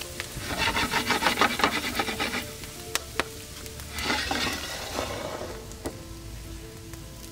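Cast iron skillet of sautéing shallots, garlic and green peppercorns in butter scraped across the tiled floor of a wood-fired oven, a long rasping run early on and a shorter scrape about four seconds in, with the butter sizzling faintly.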